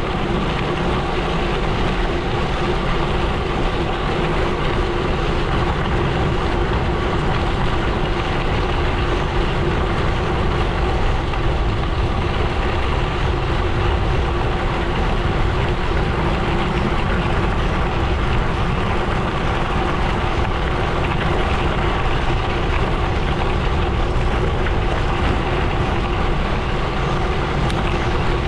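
Gravel bike's tyres rolling steadily over a gravel road: a constant rumble with a faint steady hum through it.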